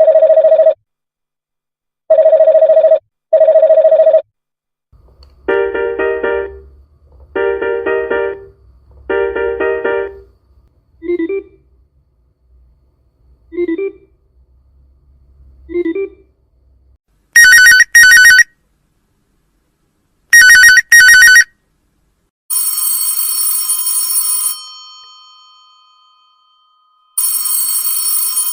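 A succession of different telephone rings: a double ring heard twice, then three longer rings over a low hum and three short soft pips, then two quick trilling electronic bursts, and finally two bursts of bell ringing that ring on and fade after each stops.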